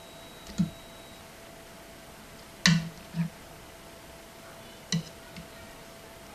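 Slotted metal fish slice knocking and clinking against a frying pan and plate while poached fish fillets are lifted out and served: about five short, sharp knocks, the loudest a little before halfway.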